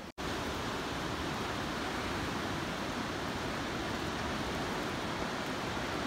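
Steady rushing noise of ocean waves breaking, with a split-second drop-out in the sound just at the start.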